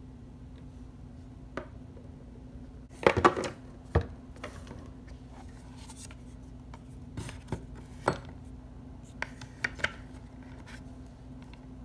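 Handling noises from a cardboard gift box and small plastic makeup tubes: a cluster of knocks and scrapes about three seconds in, then scattered clicks and taps as the products are moved about inside the box, over a low steady hum.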